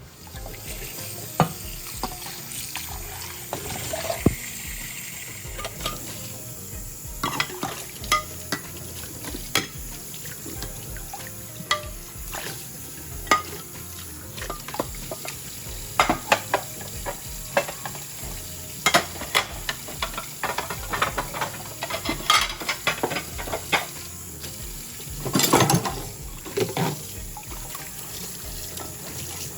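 Dishes being washed by hand at a kitchen sink: a tap running steadily, with scattered clinks and knocks of dishes and utensils throughout, busiest a few seconds before the end.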